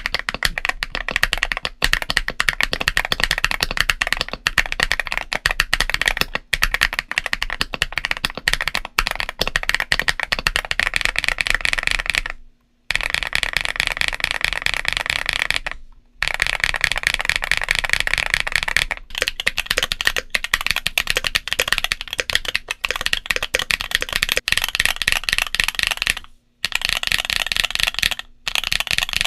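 Mechanical keyboard with MMD Princess tactile switches being typed on fast: a dense, continuous run of keystroke clacks, broken by a few brief pauses.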